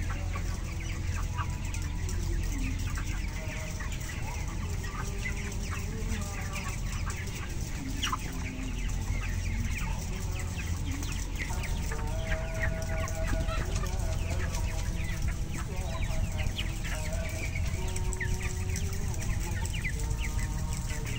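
A large flock of 27-day-old broiler chickens clucking and peeping at once, many short overlapping calls, over a steady low hum.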